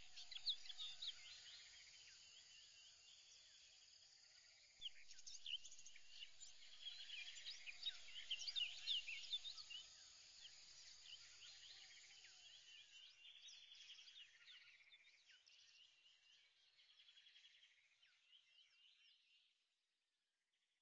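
Faint chirping of many birds: quick short calls over a light background hiss, a little busier about five seconds in, fading out shortly before the end.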